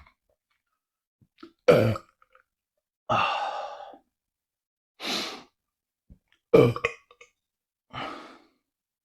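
A man burping twice, short and loud, about two seconds in and again near seven seconds. Between and after the burps come breathy exhales.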